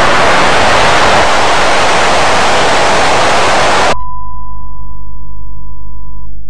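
Loud TV static hiss that cuts off suddenly about four seconds in, replaced by a steady colour-bar test tone, a single high beep over a low hum, which stops near the end.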